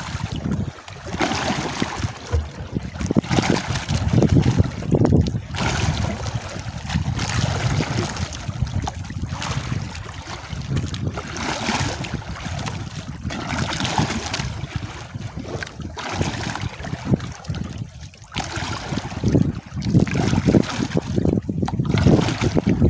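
Wind gusting on the microphone over the wash of open-sea waves against a small outrigger boat.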